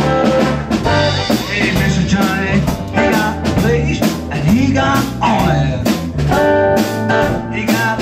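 A live band playing up-tempo garage swing: hollow-body electric guitar, upright bass, drum kit and saxophones under a steady beat, with a man singing.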